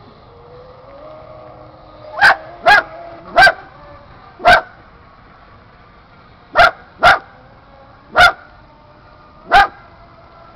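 A dog barking eight times: short, sharp single barks at irregular intervals, over a faint steady whine.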